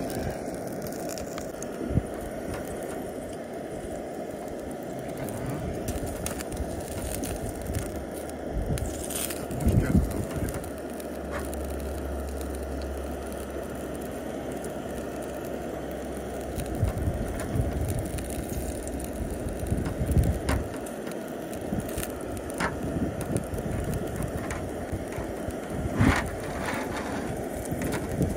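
Iwatani compact butane burner running steadily under a grill rack, with scattered small crackles and pops from a thick wagyu sirloin steak sizzling on it. Low rumbling swells come and go, the strongest in the middle.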